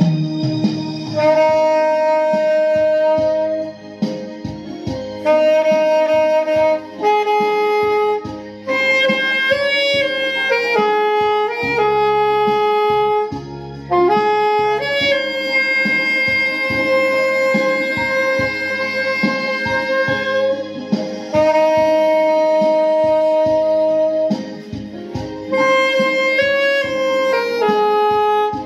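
Saxophone playing a slow, sustained melody over a backing track with a steady beat.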